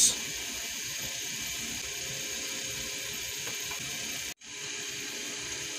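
Tomato-sauce pork stew simmering in a covered pan: a steady bubbling hiss that cuts out for a moment about four seconds in, then carries on.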